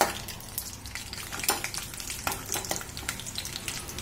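Peanuts frying in a little oil in a stainless-steel kadhai, sizzling, while a perforated steel spatula stirs them, with irregular scraping clicks against the pan.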